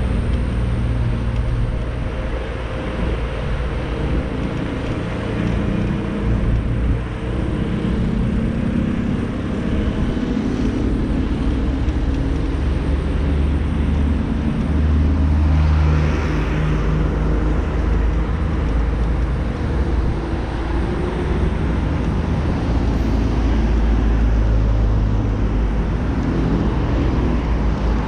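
Continuous low rumble of riding noise from a Xiaomi Mi Pro 2 electric scooter moving along a city road, with car traffic around it.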